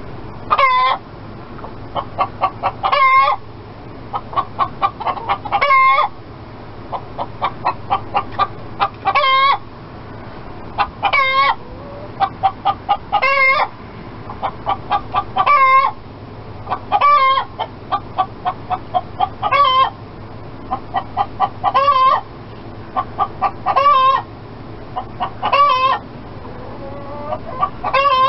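Chicken cackling: a run of quick clucks that ends in a louder, drawn-out squawk, over and over, about a dozen times at a steady pace of roughly one every two seconds.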